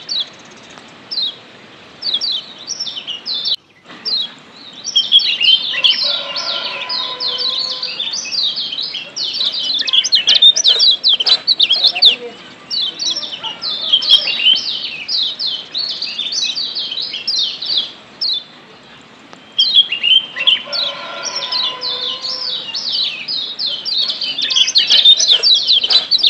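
Kecial kuning (Lombok yellow white-eye, a Zosterops) giving rapid, high 'ciak' chirps and chatter in dense bouts. There is a brief break about four seconds in and a quieter lull near the end.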